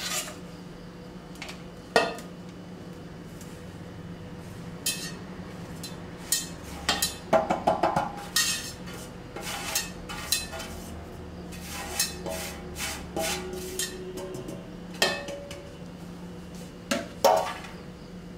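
Steel plate clinking, knocking and scraping against an aluminium pot's rim as wheat flour is tipped and tapped off into the pot. The knocks are scattered, with a busy run of clinks in the middle and a few sharp single knocks.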